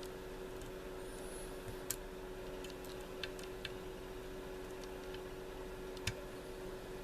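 A few light, sharp metal clicks and taps from small tubular-lock parts being handled and fitted during reassembly, spaced irregularly, the loudest about two seconds in and just after six seconds, over a faint steady hum.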